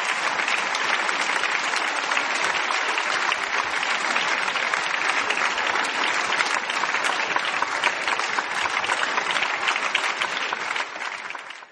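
An audience applauding: steady, dense clapping from many hands that falls away quickly and stops near the end.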